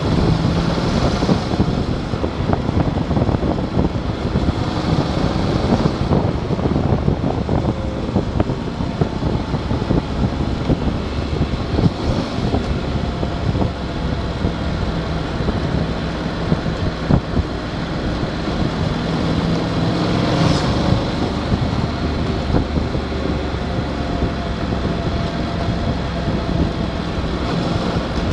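Motorcycle engine running at road speed, mixed with heavy wind rumble on the microphone and a few short gusts.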